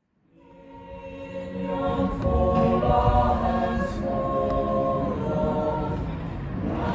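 A group of carolers singing a Christmas carol together unaccompanied, rising from silence over the first two seconds and then holding steady.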